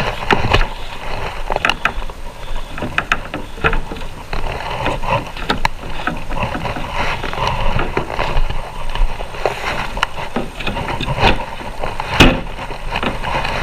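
Particleboard cabinet panels being handled and slid together into their grooves: scattered knocks, taps and scraping, with one loud knock near the end.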